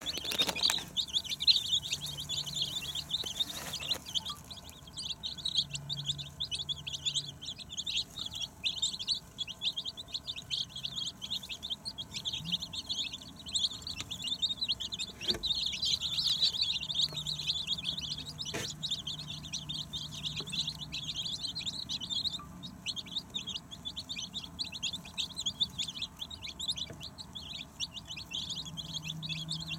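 A flock of young chicks peeping nonstop while they feed, many short high peeps overlapping. A couple of sharp clicks sound around the middle.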